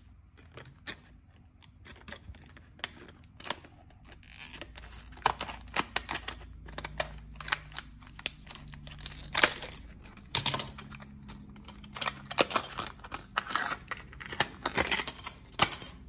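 Scissors cutting open a stiff plastic blister pack around a padlock: irregular sharp snips with crackling of the plastic, coming in busier clusters about ten seconds in and again near the end.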